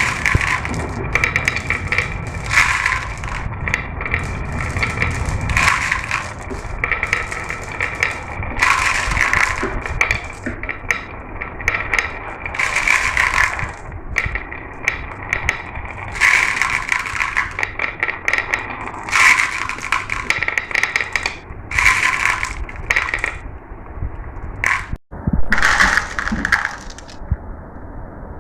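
Marbles rolling down a marble run track: a steady low rumble of rolling with repeated ringing clinks and clatters as marbles strike the track and each other. The sound cuts out for an instant near the end.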